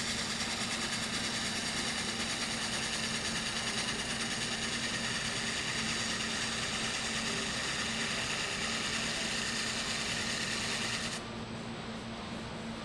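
Wood lathe running with a stave drum shell spinning, as a bowl gouge shear-scrapes a very fine shaving off the outside, giving a steady hiss of cutting over the motor's hum. About eleven seconds in, the cutting hiss stops abruptly and the lathe hum carries on.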